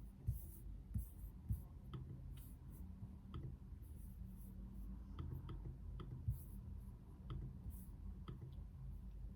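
Typing on a computer keyboard: irregular key clicks, a few per second with some louder strikes, over a low steady hum.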